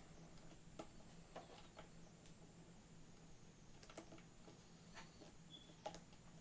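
Near silence with a few faint, scattered clicks and taps from a computer cable being handled and set in place, over a steady low hum.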